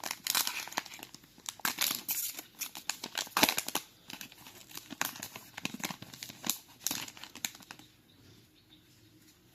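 Trading-card booster pack wrapper being torn open and crinkled by hand: a run of sharp crackles that dies away about eight seconds in.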